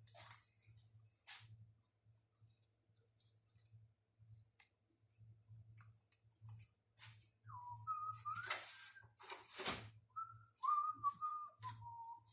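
Small clicks and rattles of handling small metal parts, then a person whistling a short tune in two phrases over the last few seconds.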